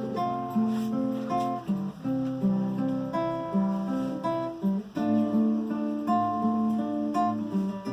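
Acoustic guitar playing chords, notes changing in a steady rhythm.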